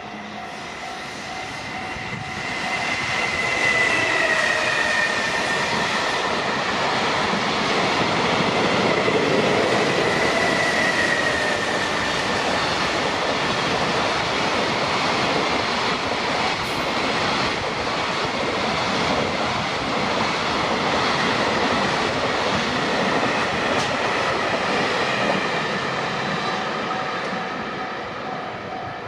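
JR Freight train, an electric locomotive hauling a long string of freight wagons, rolls past over the level crossing, building up over the first few seconds and holding for more than twenty seconds before fading. A high whine drops in pitch as the front of the train goes by. A steady ringing tone, the crossing's warning bell, sounds at the start and again as the train fades.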